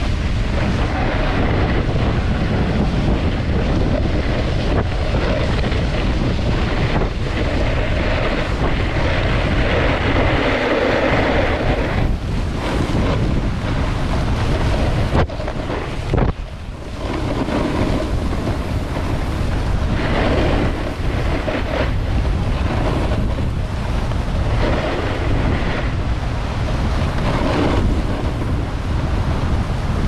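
Wind buffeting the microphone over the steady hiss and scrape of a snowboard sliding and carving across packed, groomed snow during a run. The rushing dips briefly about halfway through.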